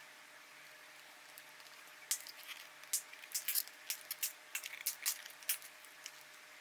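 Quiet, irregular run of short sharp clicks and taps, starting about two seconds in, over faint room hiss.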